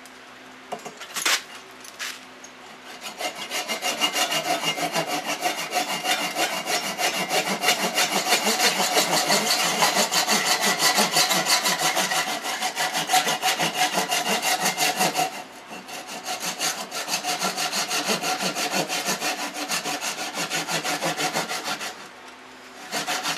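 Hand saw cutting through a wooden yoyo blank held in a lathe chuck, in quick, even strokes with a brief pause about two-thirds of the way through. There is a short metallic clink about a second in, as the saw is set to the work.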